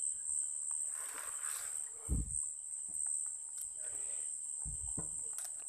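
Insects trilling in a steady, high-pitched drone, with a short hiss a little after a second in and two low thumps, one about two seconds in and one near the end.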